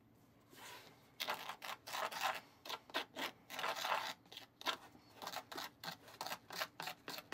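Scratchy, crinkly rustling of plastic as powdered mix is handled in a small plastic bowl, in quick irregular crackles starting about a second in.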